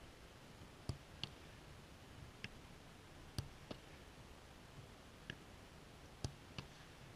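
Football being struck during goalkeeper training: sharp thuds of kicks and catches, about eight times, some in quick pairs.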